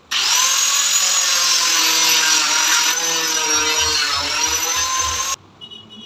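Handheld electric power tool running at speed while cutting a WPC fluted panel: a loud, whining run with a slight dip in pitch near the end, stopping suddenly about five seconds in.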